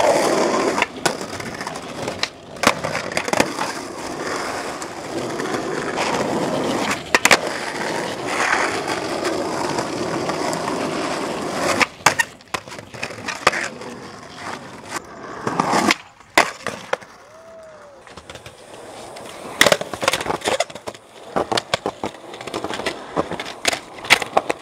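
Skateboard wheels rolling on pavement, broken repeatedly by sharp wooden clacks as the board is popped and lands.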